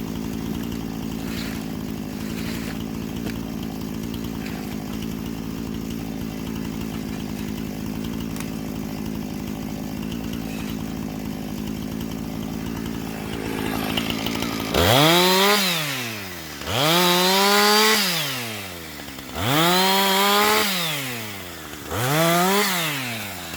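Chainsaw running at a steady pitch for about fifteen seconds, then revved up and let back down four times in a row, each rev rising and falling in pitch about every two and a half seconds.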